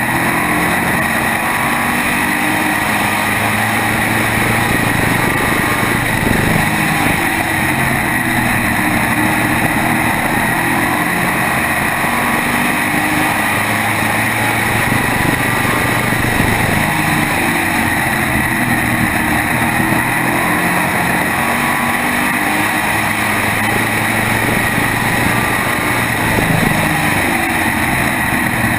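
SK modified race car's V8 engine running hard at racing speed, heard from just behind the engine. Its pitch steps up and down as the car lifts for the turns and accelerates down the straights, over a steady rush of wind and tyre noise.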